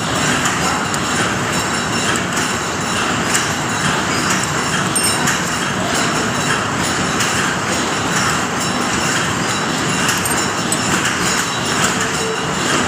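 Machinery running steadily in a workshop, a loud, even mechanical clatter and hum with no pauses.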